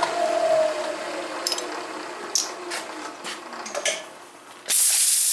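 Milling machine spindle running down after the cut, its whine falling in pitch and fading, followed by scattered light metal clinks of parts and tools being handled. Near the end, about a second of loud compressed-air hiss, as from an air gun blowing chips off the work.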